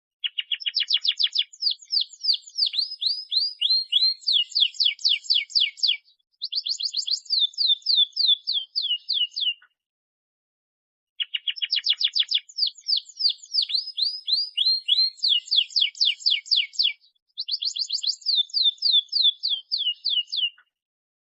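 Domestic canary singing vigorously: high-pitched song made of fast trills, each phrase a quick run of repeated down-sweeping notes. The same song of about nine seconds plays twice, with a short silent gap between.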